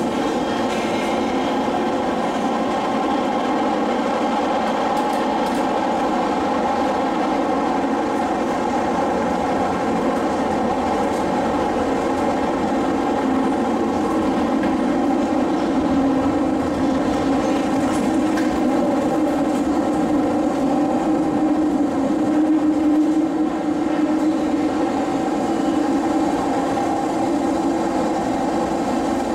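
SMRT C151 metro train running, heard inside the passenger car: a steady rumble from wheels on rail with a few steady humming tones over it.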